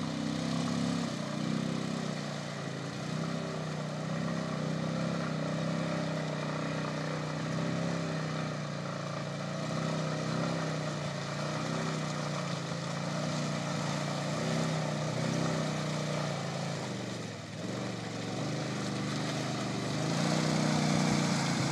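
Honda Rincon ATV's single-cylinder engine pulling through swamp mud, its revs rising and easing every second or two with the throttle. It grows louder near the end as the quad comes closer.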